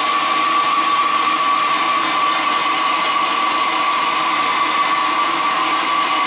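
Hair dryer running steadily, blowing air with a constant high whine from its motor.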